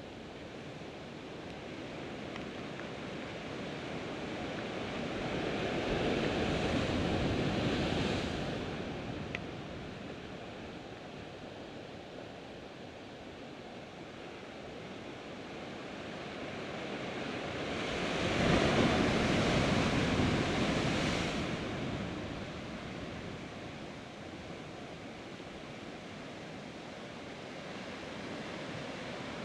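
Sea surf breaking against a rocky shore: a steady wash of water, with two waves crashing, one building to a peak about six to eight seconds in and a louder one at about eighteen to twenty-one seconds.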